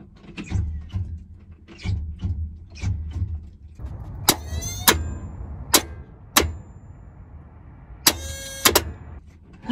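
Sharp metallic clicks and knocks at the starter motor of a 1972 Chevy C10's small-block V8, about six of them spread over the second half, two with a brief rattle, after a run of dull low thumps. The starter won't turn the engine over.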